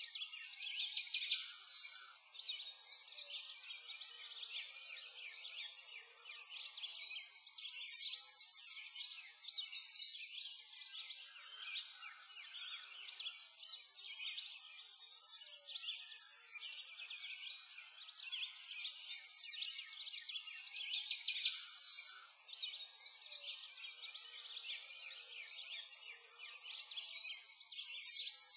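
Birdsong ambience: many small birds chirping and twittering without pause, all high-pitched with nothing low underneath, swelling and fading every few seconds.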